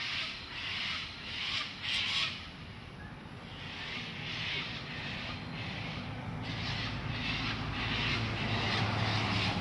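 A big flock of birds screeching all at once as they settle to roost for the night, a dense shrill din that swells and fades in quick waves. A low rumble grows louder toward the end.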